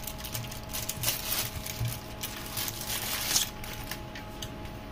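Clear plastic bag crinkling and crackling in irregular bursts as a multimeter is pulled out of its wrapping by hand.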